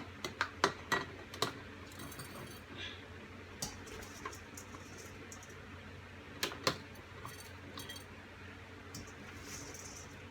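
Glass jars and kitchen utensils clinking and tapping as the jars are filled with jalapeños. The clinks come in a quick run in the first second and a half, then one about halfway through the first four seconds, then two close together about six and a half seconds in.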